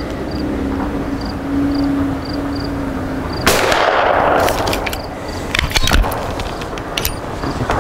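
A single suppressed rifle shot about three and a half seconds in, from a 300 Blackout custom Encore single-shot rifle fitted with a YHM Resonator K suppressor, with a short echo trailing off. A few sharp clicks follow.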